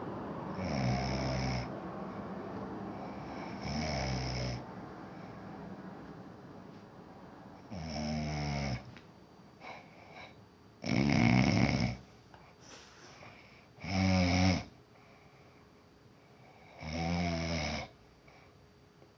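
A sleeper snoring: six snores about three seconds apart, each under a second long, the fourth and fifth the loudest.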